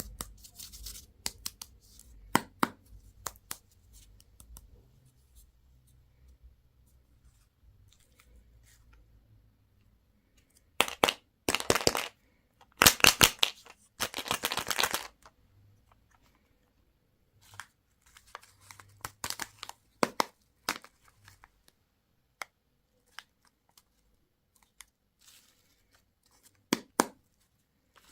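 Candy packaging being torn open: several loud rips in a cluster about halfway through, among small crinkles and clicks of handled wrapper.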